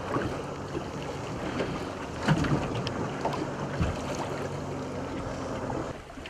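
Wind on the microphone and choppy water around an anchored small boat, with the steady drone of a passing motorboat's engine that stops about six seconds in. A couple of knocks come about two and four seconds in.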